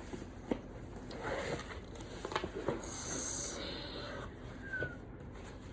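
A mailed subscription box being opened and handled: scattered taps and clicks with rustling, and a short hissing rip about 3 s in.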